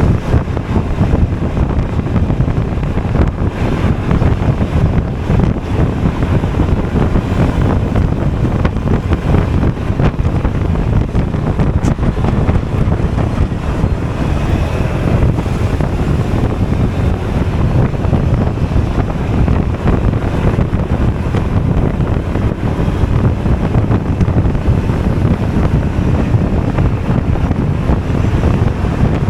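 Steady wind rushing over the microphone of a moving Honda Forza 250 scooter, mixed with its single-cylinder engine and road noise.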